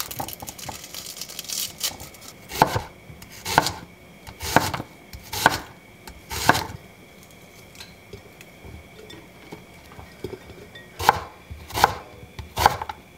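Kitchen knife slicing through a red onion on a plastic cutting board, each cut ending in a sharp knock on the board, about one a second, with a pause of a few seconds in the middle before three more cuts near the end.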